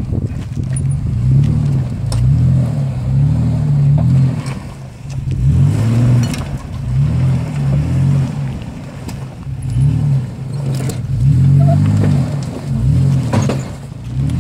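Ford Explorer Sport Trac's engine revving up and falling back again and again as the truck crawls over rocks, with a few sharp knocks along the way.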